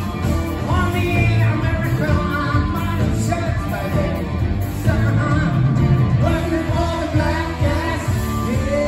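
Live band of drums, bass, electric guitars and keyboard playing with a lead singer, heard from the audience in a concert hall. Near the end the singer moves into a long held note.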